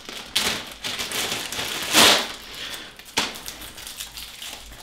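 Plastic packaging crinkling and a coiled metal-sheathed shower hose rattling as it is unwrapped and handled, in a few noisy bursts, the loudest about two seconds in.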